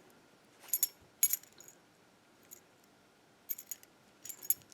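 A Corbin padlock being handled, giving short metallic clicks and clinks in a few small clusters: about a second in, and again near the end.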